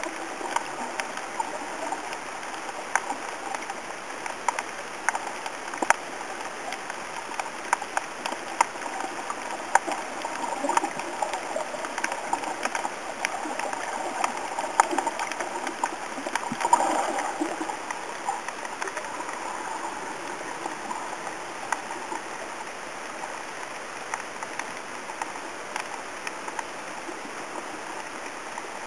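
Underwater sound in shallow reef water: a steady watery hiss dotted with irregular sharp clicks and crackles, with a short louder swell of water noise about two-thirds of the way through.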